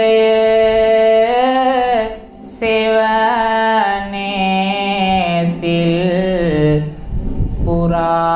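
A Buddhist monk chanting a Sinhala devotional verse into a microphone in long, drawn-out notes with slow bends in pitch. He pauses briefly for breath about two seconds in and again near the end.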